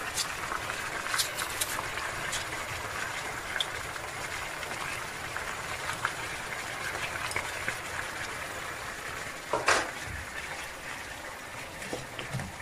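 Ossobuco and onions sizzling steadily in a frying pan, with a few light clicks and a brief louder clatter about ten seconds in.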